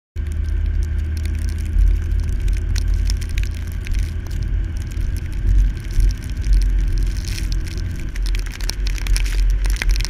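Car driving on a snowy road: a steady low rumble, with scattered crackling ticks that grow thicker in the second half.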